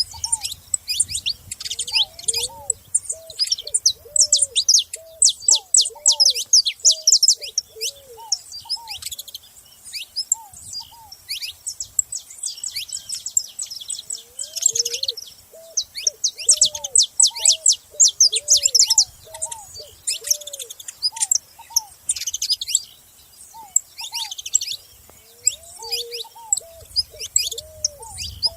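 Several saffron finches chirping and singing at once, a dense stream of rapid high chirps. A lower call comes three times, a run of short arching notes repeated several to the second: at the start, in the middle and near the end.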